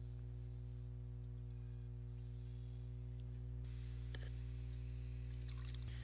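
Steady low electrical hum, with a few faint clicks.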